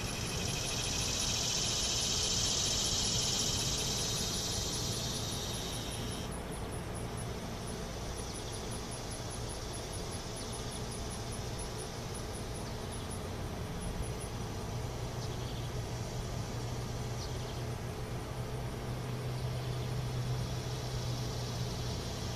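Outdoor background: a steady low engine-like hum that grows stronger in the second half, with a high buzz during the first six seconds that cuts off suddenly.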